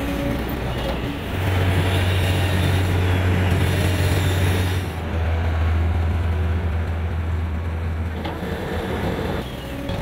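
Diesel engines of road-paving machinery, an asphalt paver and its loading equipment, running with a steady low hum and mechanical noise over it. The sound shifts abruptly about a second in, about five seconds in and near the end.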